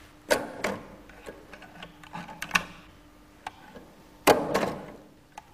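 Mignon index typewriter being worked by hand: a string of irregular mechanical clacks as its type cylinder strikes letters, the loudest about four seconds in.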